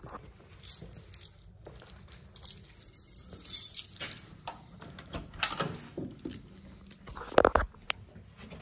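Keys jangling in hand, with scattered clicks and rattles. A louder clunk and click about seven and a half seconds in as the pickup's door latch is worked and the door opens.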